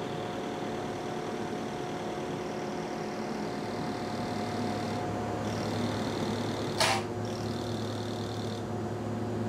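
Coherent (Lumenis) VersaPulse 100 W holmium laser running its start-up self-test: a steady electrical hum, with a faint high whine that comes and goes while the flash lamps fire. There is one sharp snap about seven seconds in.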